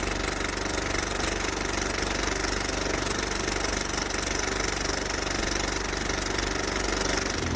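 An engine running steadily, with a fast, even low pulse.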